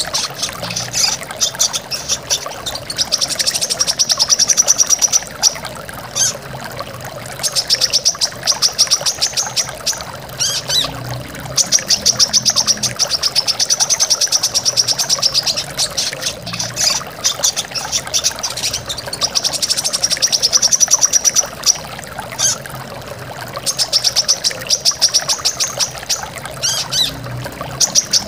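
Brown-throated sunbird (kolibri kelapa) singing: repeated bursts of rapid, high trilling notes, each a second or three long with short pauses between. Steady rushing water from a stream or waterfall runs under the song.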